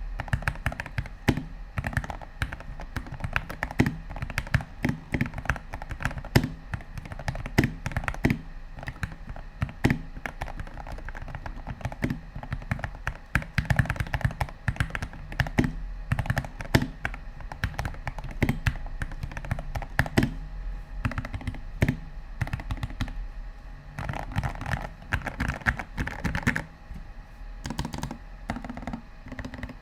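Continuous fast typing on a Royal Kludge RK84 mechanical keyboard with lubed Gateron Yellow linear switches, a tape-modded PCB and XDA-profile keycaps. The keystrokes sound quite deep, and a faint steady low hum sits underneath.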